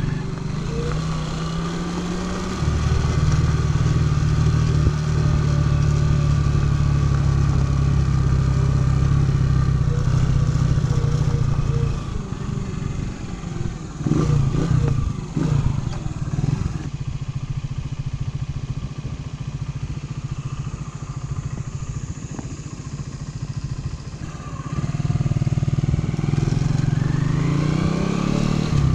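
Senke motorcycle's engine running under way, heard from the rider's seat. It picks up speed in the first couple of seconds and holds a steady cruise. About twelve seconds in it eases off and runs unevenly for a few seconds, then goes quieter, and it speeds up again near the end.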